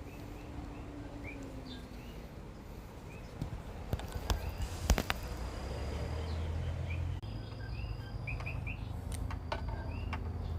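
Small birds chirping repeatedly in short notes, over a low steady rumble. A few sharp clicks come between about three and a half and five seconds in, and the loudest of them is near five seconds.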